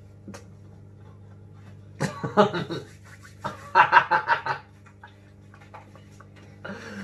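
People laughing in two bursts, about two seconds in and again about three and a half seconds in, the second the louder and more rapidly pulsing, over a low steady hum.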